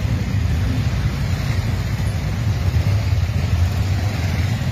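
Engines of a long column of motorcycles riding slowly past at close range, blending into a steady low rumble.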